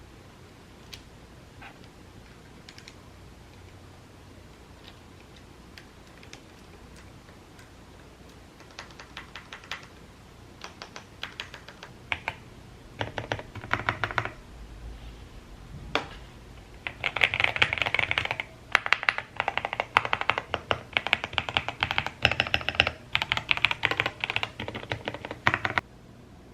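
Typing on a QK65 mechanical keyboard fitted with lubed Gateron Milky Yellow linear switches. A few scattered keystrokes come first, then short runs of keys, then fast continuous typing over the last ten seconds that stops shortly before the end.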